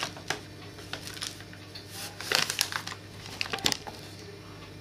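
Scattered clicks and rustles of flour being measured into a plastic mixing bowl, with a cluster of them a little past halfway.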